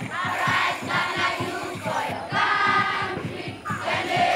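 Background music: a group of voices singing over a quick, steady beat.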